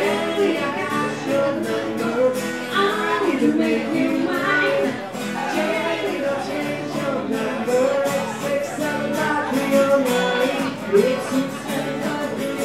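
Live acoustic music: two acoustic guitars strummed together with a man's and a woman's voices singing over them.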